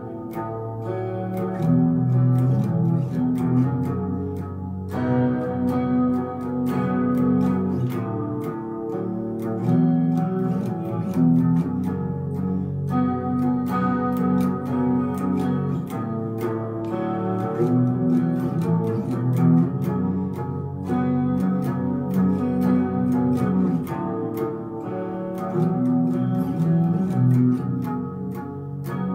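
Electric guitar played with a pick: low, chordal riffing, the phrase repeating about every eight seconds.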